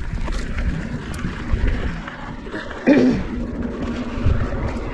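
Mountain bike rolling along a dirt trail, heard from the rider's GoPro: wind buffeting the microphone over tyre noise and small rattles from the bike, with a steady low hum. A brief voice sound about three seconds in.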